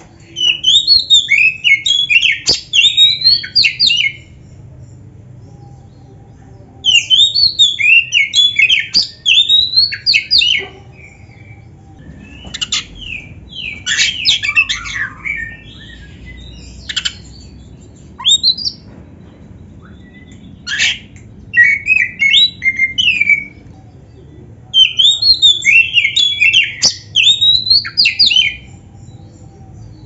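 Oriental magpie-robin (kacer) singing in bursts of a few seconds each. Each burst is a rapid run of varied, high whistled and scratchy notes, and short pauses and a few scattered single notes come between the bursts.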